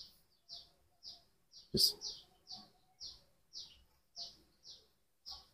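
A small bird chirping over and over, short high downward chirps about twice a second, with one soft knock a little under two seconds in.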